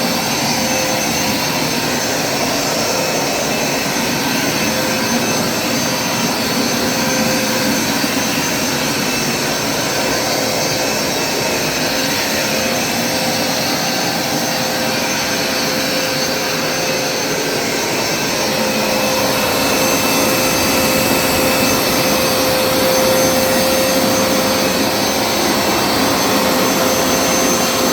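Hoover SmartWash Pet automatic carpet cleaner running continuously as it is pushed over carpet, a steady motor-and-suction noise with a constant whine. It gets a little louder about two-thirds of the way through.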